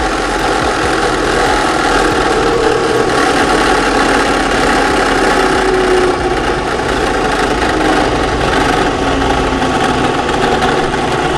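WEN variable speed drill press running steadily as its speed is turned down from near its top speed of about 3180 RPM toward its slowest of about 530 RPM. The motor and drive hum drifts gradually lower in pitch.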